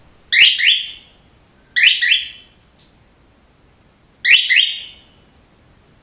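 Cockatiel calling three times, about two seconds apart: loud, shrill calls, each a quick pair of rising notes.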